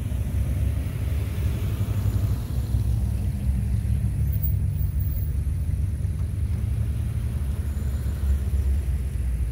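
Classic cars driving past one after another, engines running with a steady low sound.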